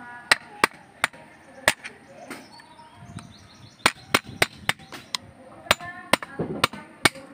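A run of sharp metallic clicks and knocks at irregular intervals, a few in the first two seconds and more closely bunched in the second half, some ringing briefly: metal parts knocking together as the old handbrake cable end is worked off the brake shoe's parking-brake lever.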